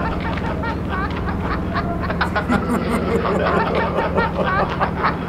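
A man snickering and laughing in short bursts over a steady low hum.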